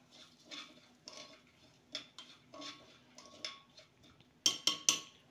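Spoon stirring dry broken wheat in a pressure cooker pot, a soft scrape and clink against the pot about every half second, then a run of sharp, louder clinks against the metal near the end.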